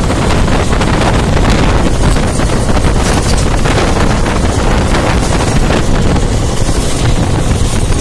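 Loud, steady rush of wind on the microphone over the running noise of an express train travelling at speed, heard from its open doorway.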